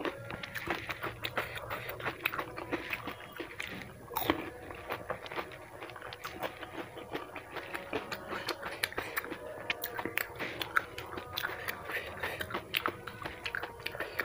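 A person biting, crunching and chewing food, with many small sharp clicks throughout and a louder crunch about four seconds in.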